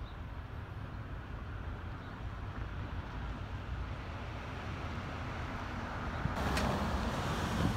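Low, steady rumble of a distant diesel locomotive, growing slowly louder as it approaches. Near the end, wind buffets the microphone with a sudden gusty hiss.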